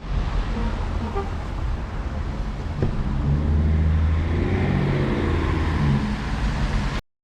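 A train running: a loud, steady rumble with a low hum that swells in the middle, and a single sharp knock about three seconds in. The sound starts and stops on abrupt cuts.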